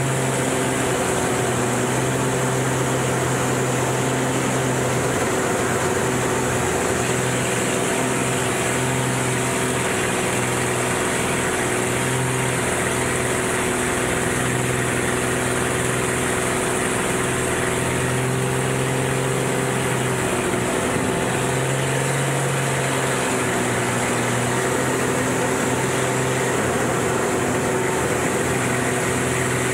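Aerobatic airplane's piston engine and propeller droning steadily in the cockpit, with small shifts in pitch now and then, over a constant airflow hiss.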